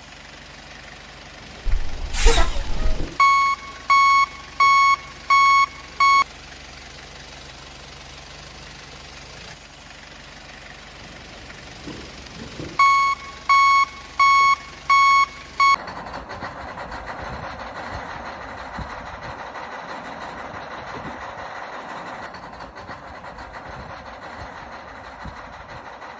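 A toy truck's reversing beeper sounding in two runs, first four beeps and then five, at a little under one and a half a second, each a steady mid-pitched tone. A short falling whoosh comes just before the first run, and from about two-thirds of the way through a steady hissing noise takes over.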